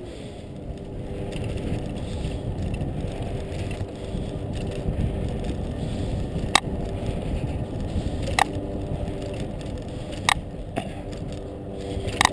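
Bicycle rolling along a paved path: steady tyre and wind noise, with a sharp clack four times, roughly every two seconds, as the wheels cross joints in the pavement.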